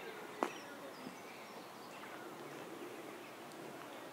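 Quiet outdoor village ambience: a steady background hiss with faint bird chirps, and a single sharp tap about half a second in.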